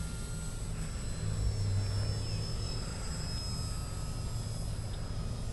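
Electric RC foam biplane in flight: the thin, high whine of its AXI 400-size brushless motor and 9x6 slow-fly propeller, over a steady low rumble.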